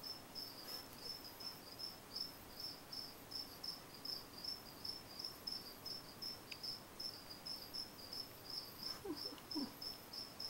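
A cricket chirping steadily in a high, even rhythm of about three chirps a second. Near the end there is a brief faint squeak.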